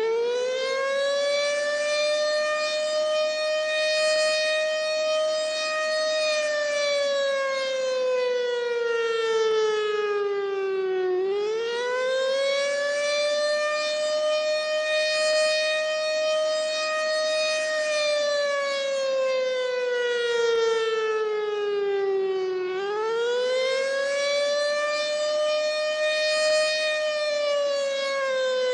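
American Signal Corporation OM-120 three-phase outdoor warning siren sounding a wail: its tone rises quickly, holds high for a few seconds, then slides slowly down, repeating about every 11 seconds, three times over. The rising and falling wail is the attack signal of the siren test.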